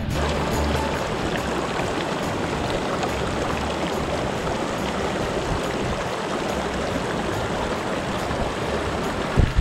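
Small, shallow mountain stream running over rocks, a steady rush of water. A brief low thump near the end.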